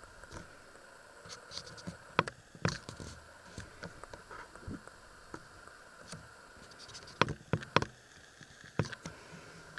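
Scattered light clicks and taps, a few clustered about two seconds in and again near the end, over a faint steady hum.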